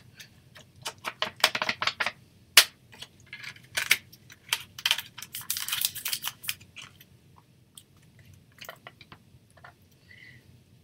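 A rust-coloured ink pad rubbed in quick scratchy strokes along the metal rim of a sardine tin to distress its edges, with one sharp click about two and a half seconds in. The strokes stop about seven seconds in, leaving only faint handling ticks.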